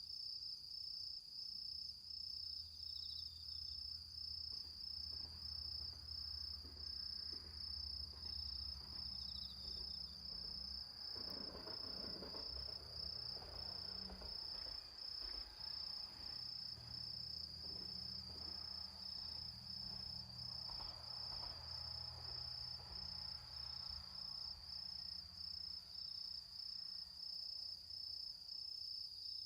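Crickets singing in a steady, high, evenly pulsing chirp, with soft crackling from the smouldering embers of a bonfire about ten seconds in and again about twenty seconds in.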